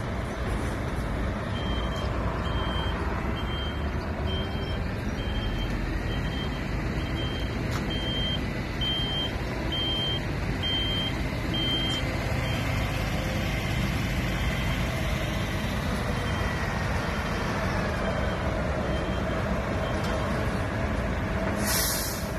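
Articulated HGV's diesel engine running at low speed as the lorry reverses, its reversing alarm beeping about one and a half times a second, loudest over the first half. Near the end a short burst of hissing air as the air brake is applied when the lorry stops.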